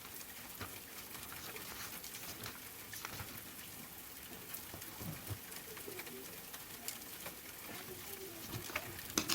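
Pigeons cooing softly now and then over a faint steady hiss of soft rain, with a few light ticks.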